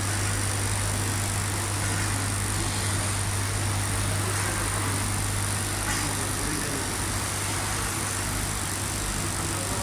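Tubular fabric spreading machine running steadily: a constant low hum under an even mechanical noise.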